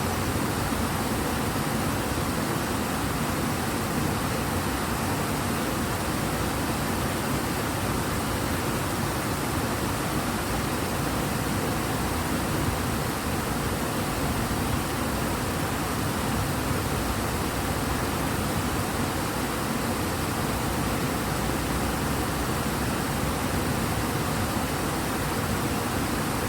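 River water rushing strongly, a steady, even rush with no breaks: the Ebro running fast.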